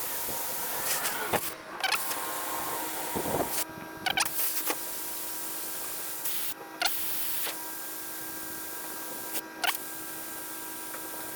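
Steady hiss of air escaping through a MORRFlate Stubby manifold as four Jeep tires deflate together, with a few short chirps and clicks over it.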